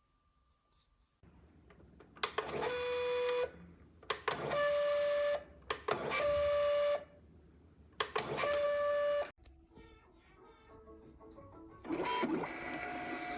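DYMO LabelWriter 550 Turbo label printer's feed motor whirring in four separate bursts of about a second each, a steady pitched whine, then some faint rapid ticking and a final noisier whir near the end.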